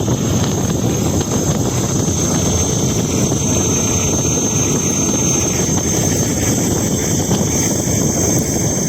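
Ola S1X Gen 2 electric scooter's hub motor running at full throttle, giving a thin, steady high-pitched whistle over heavy wind noise on the microphone. The whistle is the only sound the motor makes, with no grinding or knocking.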